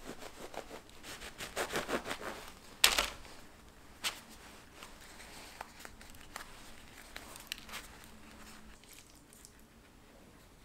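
A knife sawing into a soft bread roll with parchment paper crinkling, in a quick run of rustling strokes, then a sharp knock about three seconds in and a smaller one a second later, followed by faint handling clicks.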